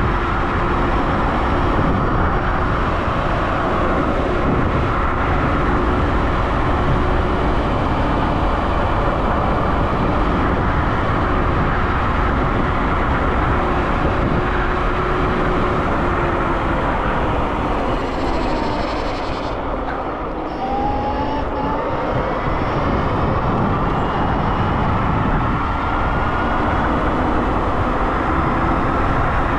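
Dualtron X Limited electric scooter riding at speed: heavy wind rush on the microphone and tyre noise, with a steady motor whine. About twenty seconds in it eases off briefly and the whine drops, then rises again as it speeds back up.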